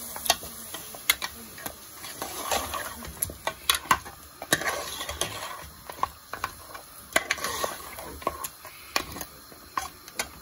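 A metal spoon stirs chunks of meat in a thick masala and yogurt gravy in a stainless steel pot, clinking and scraping against the sides at irregular moments, with wet stirring noise in between. This is the curry base being fried with the yogurt.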